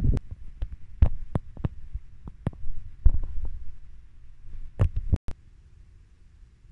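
A dozen or so irregular sharp clicks and low knocks, a few a second, stopping abruptly about five seconds in, leaving only a faint low background.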